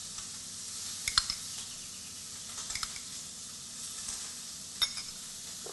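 Salmon skewers sizzling steadily on a grill turned up to high. A few light clinks of a metal spoon against a small glass dish come about a second in, near the middle and near the end.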